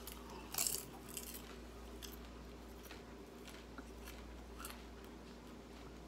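A person chewing a mouthful of microwave popcorn, with short crisp crunches loudest about half a second in, then fainter, sparser chewing.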